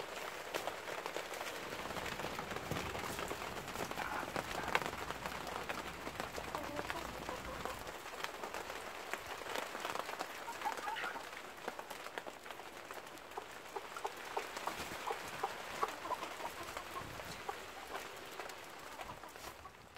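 Steady patter of rain, with hens pecking at feed on a tray and giving occasional clucks.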